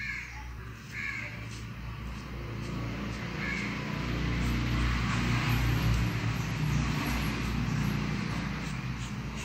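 A low vehicle engine hum that grows louder towards the middle and then eases off, as a motor vehicle passes, with a few short bird calls, like crows cawing, in the first four seconds.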